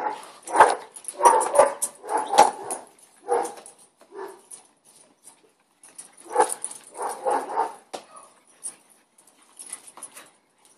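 Dogs barking: a run of barks over the first few seconds, a pause, then another run about six seconds in, fainter toward the end.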